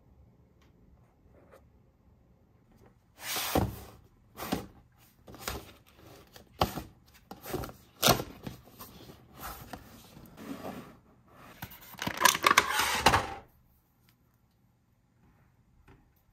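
Toys and packaging being handled: a string of short rustles and scrapes starting about three seconds in, bunching together near the end, then stopping.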